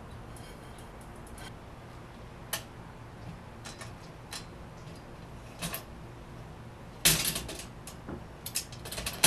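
Metal tricycle parts being handled and fitted together: scattered light clicks and clinks, a louder clatter about seven seconds in, and a sharp knock near the end.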